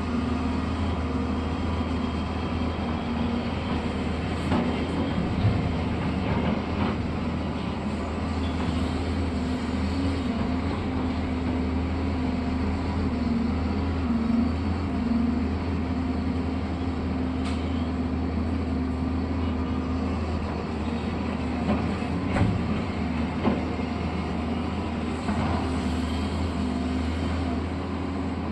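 Earthmoving machinery running steadily: a constant low drone with a wavering hum above it, broken by scattered short clanks and knocks.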